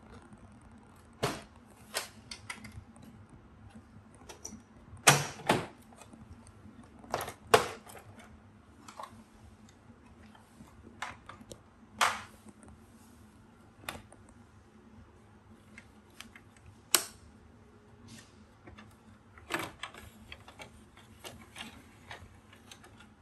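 Irregular clicks and knocks of parts being handled on a Fuji Xerox ApeosPort C4570 printer while its old IBT cleaner assembly is removed. A few louder knocks stand out among the smaller clicks.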